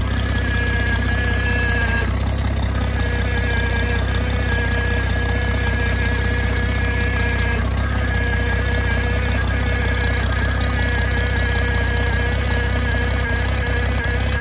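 International 656 tractor's gasoline six-cylinder engine idling steadily just after a cold start in sub-zero weather, with a faint steady whine over the engine note.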